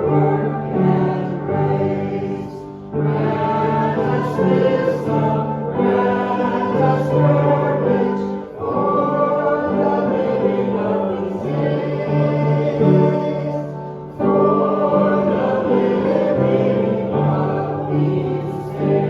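Background music: a choir singing a slow gospel song in long held phrases, with short breaks between them.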